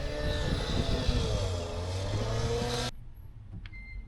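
Road vehicle driving, its engine note rising and falling over steady road noise; the sound cuts off suddenly about three seconds in, leaving a much quieter background with a few faint clicks.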